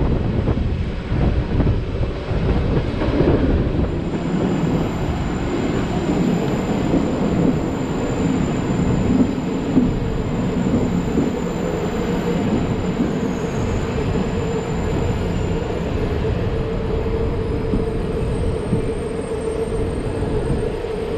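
Le Petit Train Jaune's metre-gauge electric train pulling slowly into a station, its wheels rumbling steadily on the rails. In the last few seconds a steady high tone grows stronger over the rumble.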